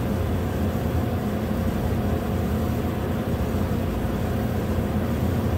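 Steady low mechanical drone of running machinery, even and unchanging, with a faint steady whine above it.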